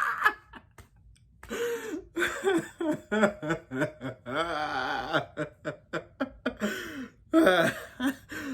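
A person laughing hard in quick, repeated pitched bursts, starting about a second and a half in.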